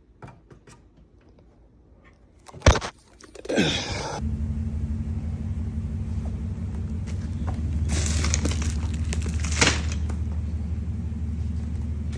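BMW G82 M4's twin-turbo straight-six, fitted with a Valtronic exhaust, starting up after a sharp click about two and a half seconds in, then settling into a steady low idle.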